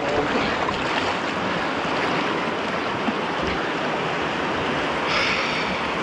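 Fast mountain stream rushing and splashing over boulders close to the microphone, a steady whitewater rush that turns hissier about five seconds in.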